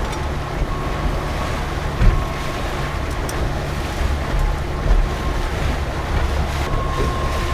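Boat motor running steadily at trolling speed, with wind on the microphone and water noise around the hull; a couple of knocks about two and five seconds in.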